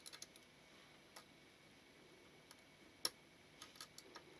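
Small, light metal clicks of tweezers and a small screwdriver working against the parts of a Mamiya-Sekor 100mm leaf shutter while a tiny spring is fitted. A quick cluster of clicks at the start, then scattered single ticks, the loudest about three seconds in.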